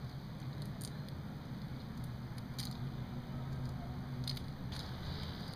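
Half-boiled crayfish shells being cracked and peeled by hand: a few faint snaps, over a steady low hum.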